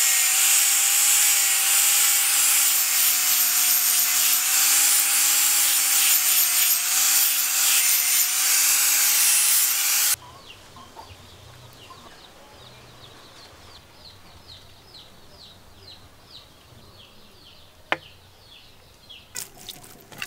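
A handheld angle grinder with a green polishing disc runs against a steel knife blade with a steady, slightly wavering whine, then stops abruptly about ten seconds in. After that, a bird chirps repeatedly and faintly, there is a single sharp click, and near the end the blade begins scraping on a wet sharpening stone.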